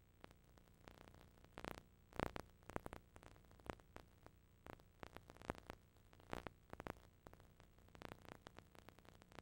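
Near silence: faint recording static, a low hiss with scattered irregular clicks and crackles, the loudest about two seconds in.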